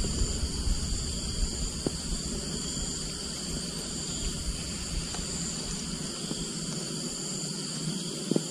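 A steady, high-pitched chorus of insects, with a low rumble on the microphone and a few faint clicks.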